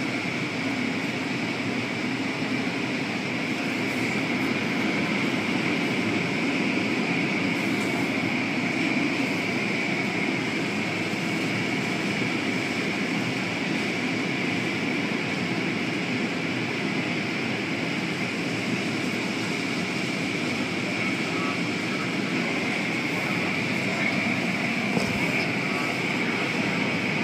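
Automatic tunnel car wash running: spinning cloth wash brushes and water spray working over a soaped SUV, making a steady, unbroken whirring hiss with a constant high whine.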